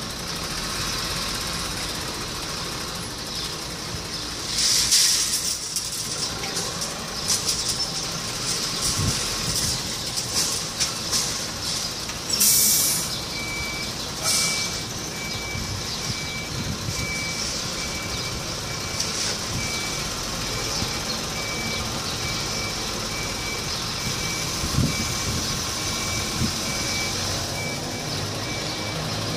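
Box truck's diesel engine running as it manoeuvres, with short hisses of air, like brakes being released, a few seconds in and again about twelve seconds in. From the second hiss on, its reversing alarm beeps steadily as it backs up.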